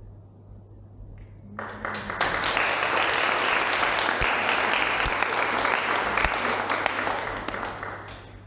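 Audience applauding: the clapping starts suddenly about one and a half seconds in, holds for several seconds and fades out near the end.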